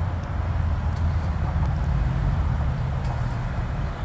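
Steady low rumble of a small business jet's engines at taxi power as it lines up on the runway.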